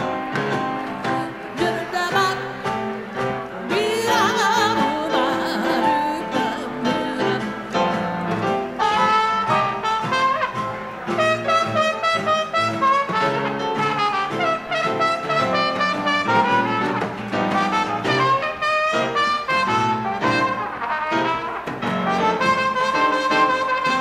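Jazz dance orchestra playing an instrumental chorus in 1920s–30s style, with trumpet and trombone to the fore.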